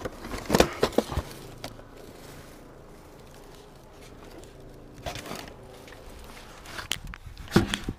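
Handling noise from a cardboard box of VHS cassettes being tipped and moved: plastic cases knocking and cardboard scraping, in short clusters of knocks about half a second in, around five seconds in, and several sharper clicks near the end.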